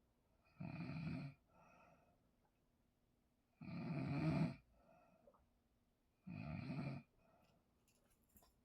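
A person snoring in sleep: three loud snores about three seconds apart, each followed by a shorter, softer breath.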